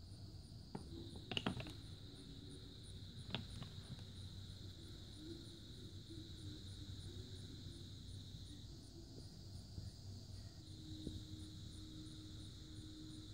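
Glass paperweights clinking lightly against each other and the wooden bowl as they are handled: a quick cluster of knocks about a second and a half in and a single one a couple of seconds later. A faint steady high-pitched drone sits underneath.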